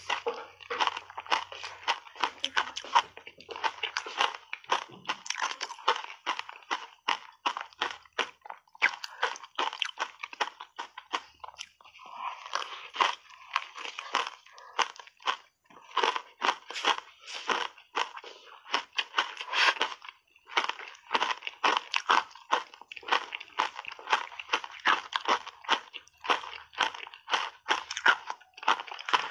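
Ice cubes and shaved ice coated in heavy matcha tea powder being bitten and chewed close to the microphones: a dense run of crisp crunches, several a second, letting up briefly near the middle and again about two-thirds of the way through.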